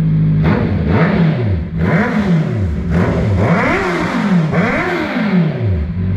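Honda CB650R's inline-four engine through a full titanium aftermarket exhaust being revved about four times, each rev rising and falling back. It drops to a steady idle at the end.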